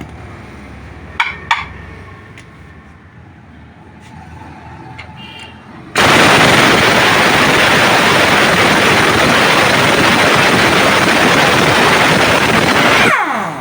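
A couple of sharp metal clicks, then a handheld angle grinder starts about halfway in, grinding metal with a loud, steady rasp on the e-rickshaw leaf spring's hardware, and winds down with a falling whine near the end.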